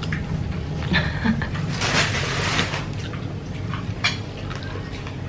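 Close-up eating sounds: cooked leafy green vegetables being bitten and chewed, wet mouth sounds with a few short crisp clicks.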